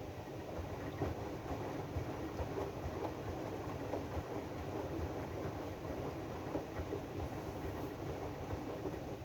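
AEG DualSense washing machine partway through its drum-clean cycle: the drum turning with a steady churning noise and irregular light knocks.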